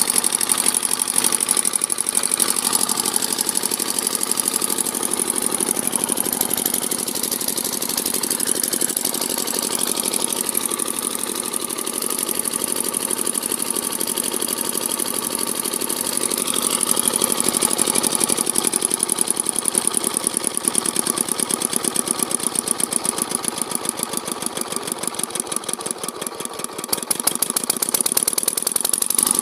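Small single-cylinder diesel engine running with a steady exhaust beat, while its misfire and hunting are being set right. Near the end its beat slows and drops in level for a few seconds, then picks back up.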